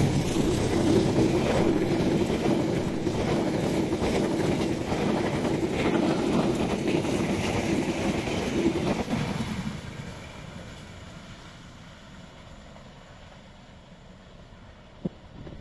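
A long train of new-generation stainless-steel passenger coaches rushing past at speed, wheels clattering over the rail joints. It is loud for about nine and a half seconds, then drops away quickly to a faint rumble as the last coach recedes.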